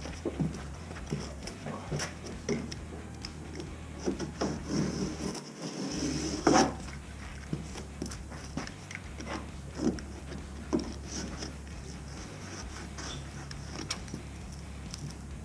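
Utility knife cutting through a cardboard water-heater carton along its bottom edge, in irregular short scraping strokes with small clicks and rustles.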